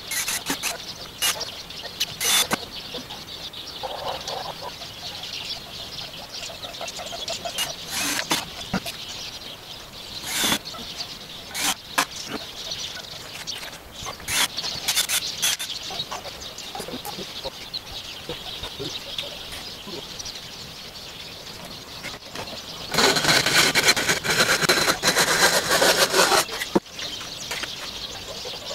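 Scattered knocks and clicks of hand work on an old wooden bench's slats, with a louder, denser noise lasting about three seconds near the end.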